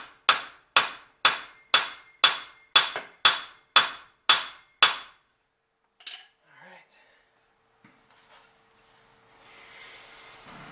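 A steel hammer strikes the steering knuckle at the outer tie rod end about ten times, steadily at roughly two blows a second, each blow ringing metallically. The blows are meant to shock the tie rod end's tapered stud free of the knuckle. They stop about five seconds in, and a single faint knock follows.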